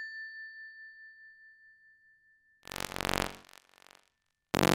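A single clear chime rings out and fades over about two seconds. It is followed by two short, buzzy bursts of sound effect, louder than the chime, one a little over halfway through and one at the very end.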